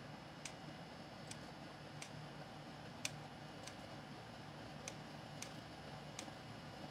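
Kitchen scissors snipping pieces off raw dough: faint sharp clicks as the blades close, about eight at uneven intervals, over a low steady hum.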